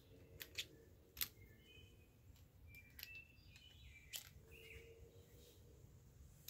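Faint, separate clicks of .38 Special hollow-point cartridges being pushed into a Taurus 856 revolver's cylinder from a rubber speed strip, about five in all. Faint bird chirps in the background.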